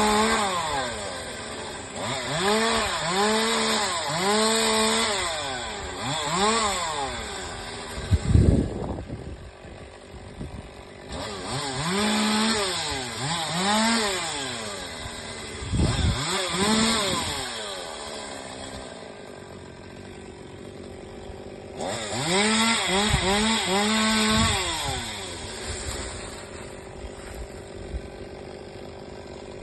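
Chainsaw revving up and down in quick repeated surges, in three spells of cutting with the engine idling between. Two heavy thuds, the first about eight seconds in and the loudest moment, the second around sixteen seconds.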